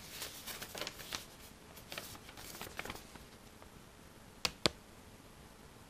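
Paper rustling and crackling as a folded instruction-manual sheet is unfolded, with two sharp clicks close together about four and a half seconds in.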